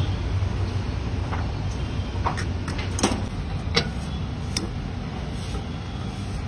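Cooking clatter at a stall: a handful of sharp clicks and light clinks of eggshell and a steel pan, spread over a few seconds above a steady low hum.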